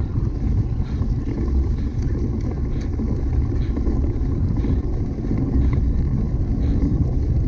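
Steady low wind rumble on the microphone of a camera riding along on a cyclocross bike, with a few faint clicks and rattles.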